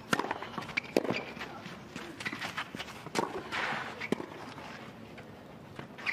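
Tennis ball struck back and forth with racquets in a rally on a clay court, a sharp pop about once a second. Between the strikes, players' footsteps scuff on the clay.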